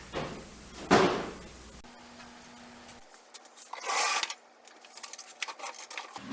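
Tools and tool boxes being handled: a sharp knock about a second in as something is set down, then a brief scrape or rustle near the middle and a few light clicks.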